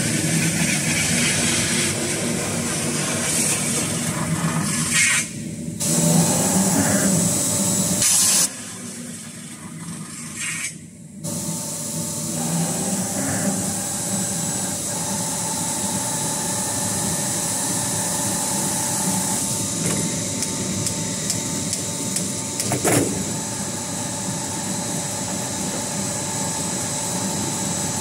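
CNC metal spinning machine running as it turns and forms a sheet-metal fan impeller shroud: a steady mechanical hum with high whining tones. The sound drops away briefly twice in the first half, and there is one short sharp sound a little over 20 seconds in.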